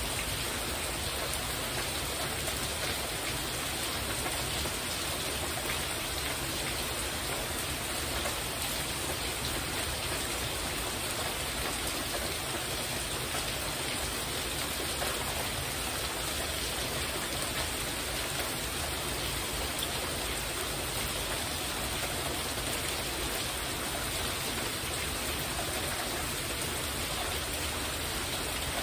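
Heavy rain falling steadily on the roof of a covered porch overhead, an even, unbroken wash of noise.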